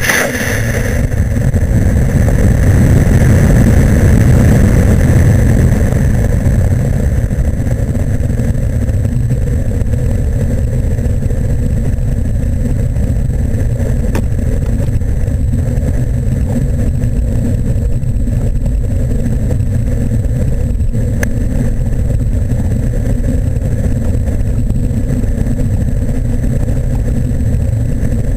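Model rocket's motor igniting and firing, heard from a camera riding on the rocket, followed by the rush of air over its microphone. There is a sudden loud onset at the start, loudest for the first few seconds of the climb, then a steady rumbling rush of air through the coast and the descent under parachute.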